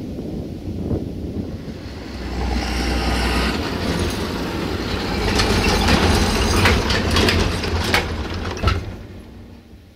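Claas farm tractor pulling a loaded trailer over a level crossing: a heavy low engine rumble swells, then a quick run of clatter and knocks as the wheels cross the rails, fading out near the end.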